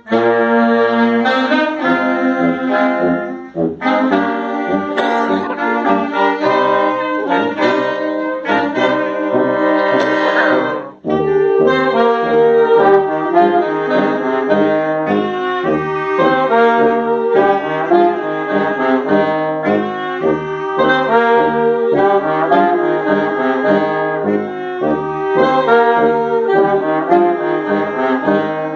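A small wind band of clarinets, saxophones, trumpet, trombone and sousaphone playing an ensemble arrangement together. The music stops briefly about four seconds in and again about eleven seconds in.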